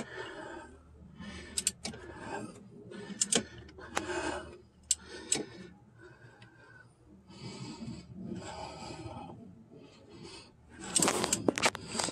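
Rubbing and scraping in irregular short bursts, with a few sharp clicks, as a ribbed rubber stretch belt is worked onto the AC compressor pulley by hand; the scraping gets louder near the end.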